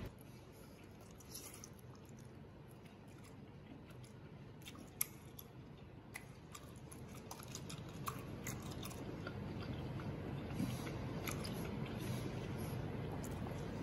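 Chewing and biting of smoked pig large intestine: wet mouth sounds with many short crisp clicks, one sharper click about five seconds in, growing louder in the second half.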